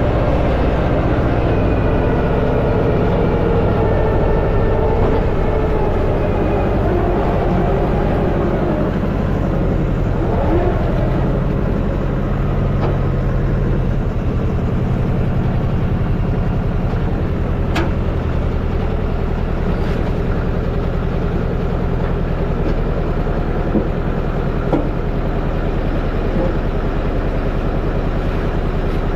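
A vehicle engine running steadily, its pitch shifting up and down over the first half. A few faint sharp clicks come in the second half.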